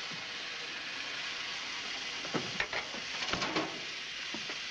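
A steady, even hiss, with a few short noises a little after halfway through.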